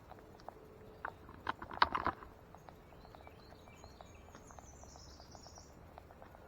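Footsteps of a person walking at a steady pace, with a louder cluster of steps about two seconds in. A bird calls faintly and high-pitched in the second half.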